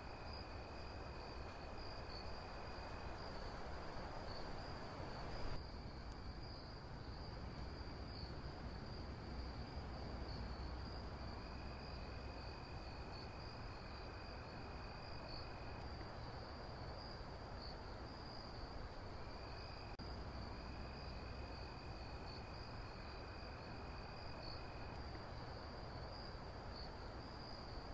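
Night insect chorus: a steady, high cricket trill, with a second, lower trill that comes and goes in stretches of a few seconds, over a low background rumble.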